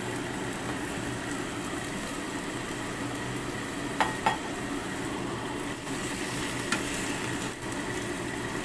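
Greens and oyster mushrooms cooking in a wok with a little water, a steady sizzle and simmer. About four seconds in come two short ringing metal clinks, and a few light spatula clicks follow near the end.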